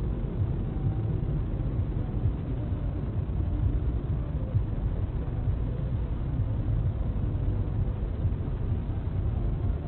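Steady low rumble of a car driving, engine and road noise heard from inside the cabin through a dashcam's microphone.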